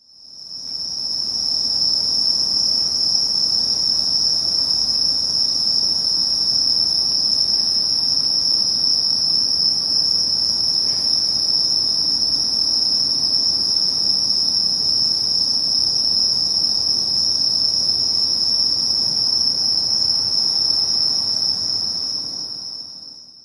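Steady, high-pitched insect chorus, like crickets chirring, fading in at the start and fading out at the end.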